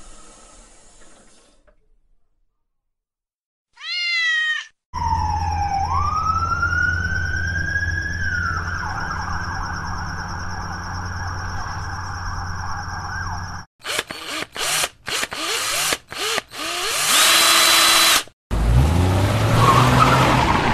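A run of separate sound effects. A hiss fades out, then after a short silence a cat meows once. Next comes a police siren that swoops up and holds over a steady low helicopter drone, then a drill in several short bursts, and near the end a car engine revving up.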